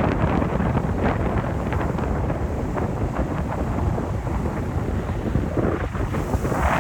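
Wind buffeting the microphone aboard a moving boat, a steady low rumble mixed with the rush of the boat through the water. A brighter hiss swells near the end.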